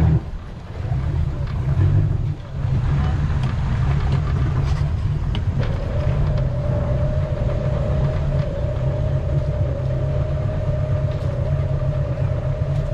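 Towboat's outboard engine running at low speed while towing, a steady low rumble that dips briefly twice near the start; a steady whine comes in about six seconds in and holds.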